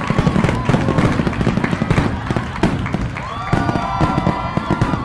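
Fireworks crackling and popping in rapid succession, with low booms. From about three seconds in, several drawn-out tones that rise and fall sound over the crackle.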